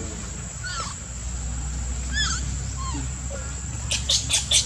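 Baby monkey giving a few short, high squeaks, then a quick run of four or five loud, sharp cries near the end as an adult monkey grabs it.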